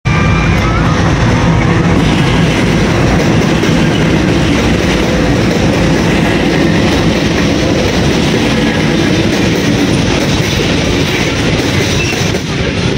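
A pair of diesel locomotives hauling a loaded coal train pass close by with their engines running. Then the heavy coal wagons roll past with a steady, loud wheel rumble and clatter on the rails.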